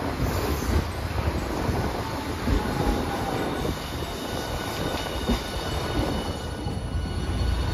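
Hiroden streetcar running on its track: a steady rumble of wheels on rail, with thin high tones from the wheels and running gear coming in during the second half.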